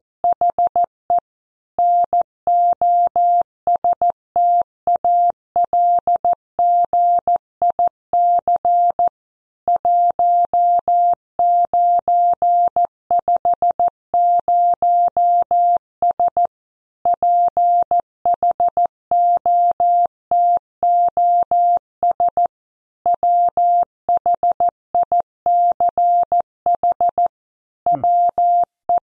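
Morse code sent as a single steady electronic beep, keyed on and off into short dots and longer dashes at about 14 words per minute, with longer pauses between letters and words as it spells out a news headline for copy practice.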